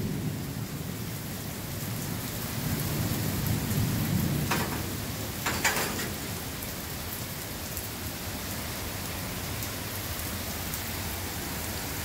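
Heavy rain pouring steadily in a thunderstorm, with a low rumble of thunder a couple of seconds in and two sharp taps around the middle.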